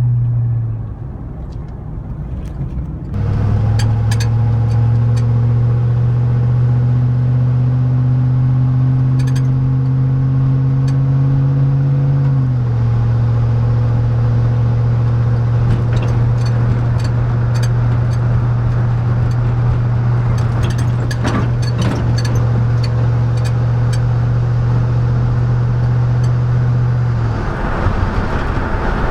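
A 5.3-litre LM7 V8 through a Cherry Bomb muffler, heard inside the truck's cab. It eases off about a second in, then pulls under throttle with the drone climbing slowly in pitch. The pitch drops at a gear shift about twelve seconds in, and the engine holds a steady cruising drone before easing off near the end.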